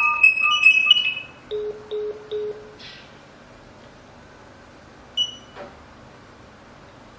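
Electronic beep tones from a touch-screen GSM alarm panel: a few quick higher notes at the start, then three short low beeps in quick succession, and a single higher beep with a faint click about five seconds in.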